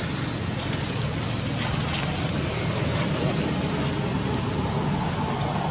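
Steady low outdoor rumble that holds at an even level throughout, with a few faint clicks.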